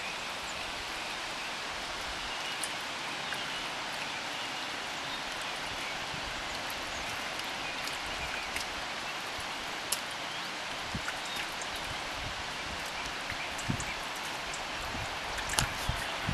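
Steady rain falling, an even hiss with scattered louder drops ticking close by.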